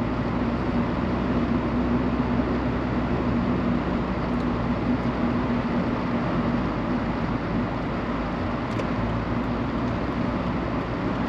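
Steady road and engine noise of a moving car heard inside its cabin, with a low hum that eases off about halfway through.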